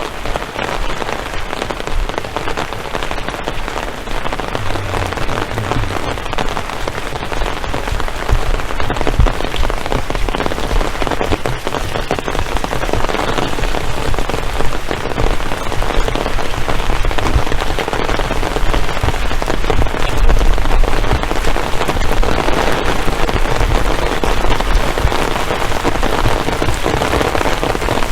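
Heavy rain falling steadily, a dense loud hiss with a deep rumble underneath.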